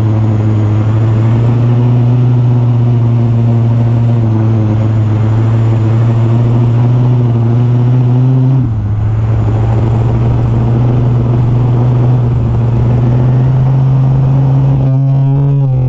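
Small two-stroke weedeater engine on an RC truck running steadily at high revs, with a brief drop in revs a little past halfway. Music comes in near the end.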